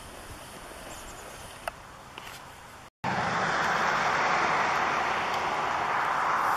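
Wheels of a rollator walker rolling on an asphalt path: a steady rolling rumble that cuts in abruptly about three seconds in, after a brief dropout. Before it there is only a faint hiss with a single click.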